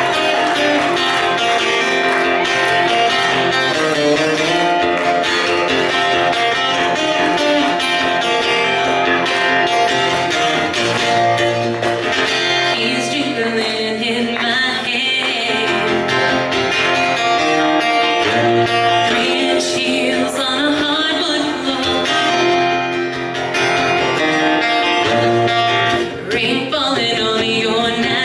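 Live acoustic guitar accompanying a country song, with a voice singing over it.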